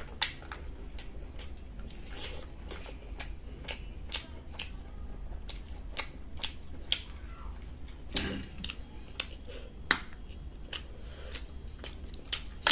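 Close-up eating sounds: irregular sharp clicks and smacks of a mouth chewing, about two or three a second, over a low steady hum.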